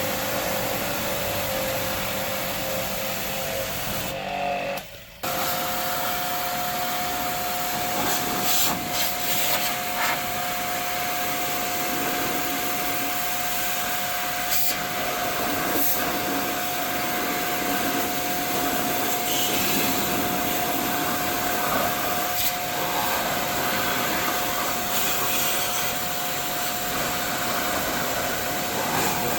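A high-speed electric motor driving air runs steadily with a whine, cutting out briefly about four and a half seconds in before starting up again, with a few light clicks and knocks over it.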